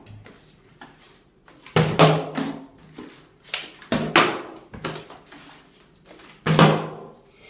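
A partly filled plastic water bottle being flipped and hitting a marble countertop: about four sharp thuds, the loudest about two seconds in and near the end, with a short echo of a small room.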